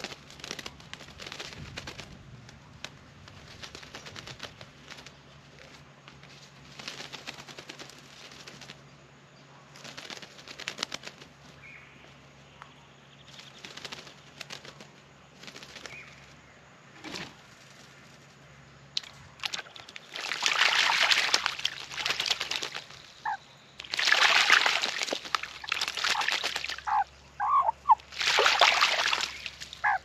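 Australian magpie bathing in a birdbath, splashing water with its wings in repeated bursts. The splashing is faint at first, then much louder in three long bouts over the last ten seconds.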